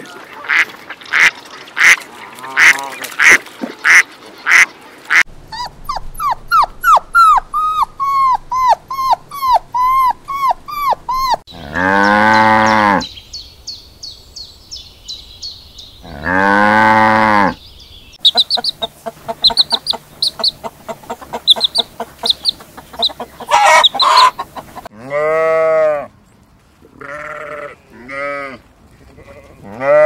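A series of farm animal and bird calls: quick repeated calls and fast chirping, then two long, loud cow moos a few seconds apart, then shorter calls near the end.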